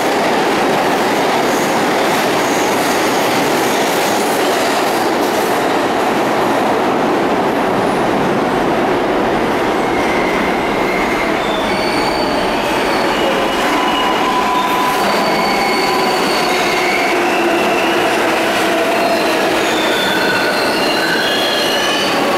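Loud, continuous subway train noise in a station: rumbling and rattling from a train on the far tracks, then from about ten seconds in, high steady wheel squeals as an R142A subway train approaches and pulls in alongside near the end.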